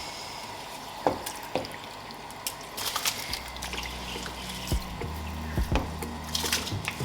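Water trickling and dripping as washed rice is tipped into a pot, with a few sharp clinks of pot or utensils. A low steady hum comes in about three seconds in.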